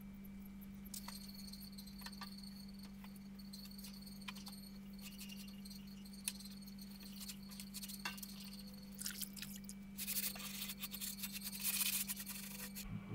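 Cloth and scrubber wiping a gas grill's metal side-burner pan, with faint scattered scrapes and clicks. It turns into a longer, rougher bout of scrubbing from about nine seconds in, over a faint steady hum.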